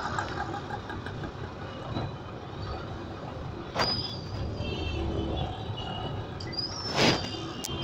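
Traffic noise from a moving auto rickshaw, with the rickshaw's engine rumbling steadily underneath. Two short loud noises come through, about four and seven seconds in.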